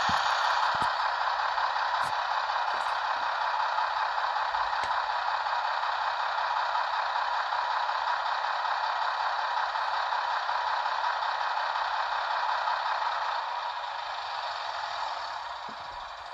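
Märklin model of a DB class 245 diesel locomotive playing its digital diesel engine sound through its small onboard speaker: a steady engine drone, thin with no deep bass, fading away over the last few seconds.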